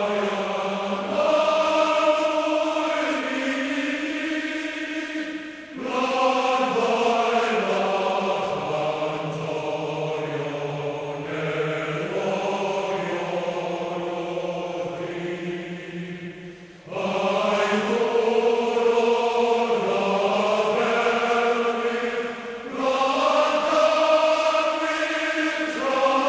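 A choir singing slow phrases of long-held chords, with short breaks between phrases.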